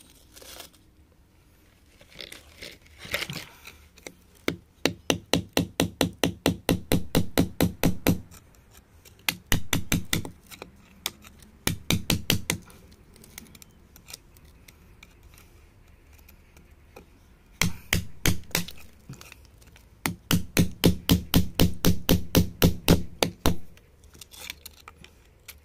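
A flat metal chisel striking the rock over and over, in quick runs of about five or six knocks a second with short pauses between the runs.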